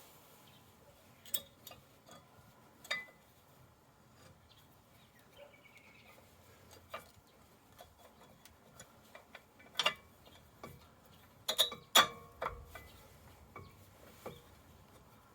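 Scattered clicks and clinks of hand tools and brake parts being handled, a few at a time with pauses between, the loudest a cluster of ringing metal clinks about twelve seconds in.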